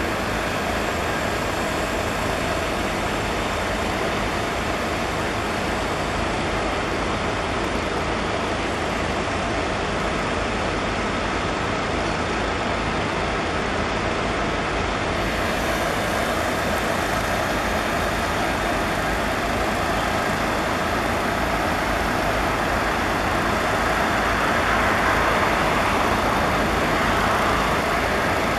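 Diesel locomotive engines running steadily, a continuous low drone mixed with broad mechanical noise, swelling slightly near the end.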